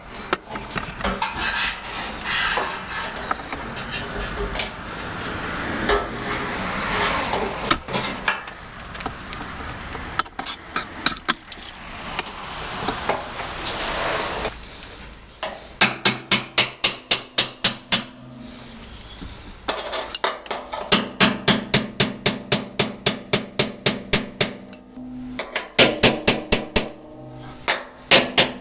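Scraping and rubbing, then three quick runs of hammer taps on metal, about five a second and each ringing briefly, as a new fuel pump lock ring is tapped round to seat it on a Jeep fuel tank.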